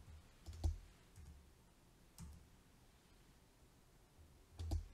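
Computer keyboard being typed on, heard as a few scattered faint key clicks with soft thumps, the loudest pair near the end.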